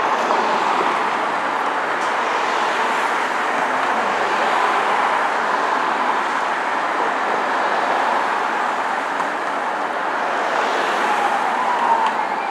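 Steady city road-traffic noise from buses and cars moving slowly in dense traffic. Near the end a faint siren tone starts up in the distance.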